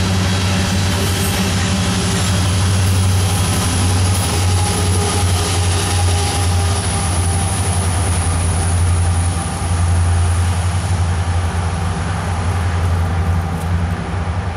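Loaded coal train's steel hopper cars rolling over the rails in a steady, loud low rumble that carries on at an even level after the last car has gone by.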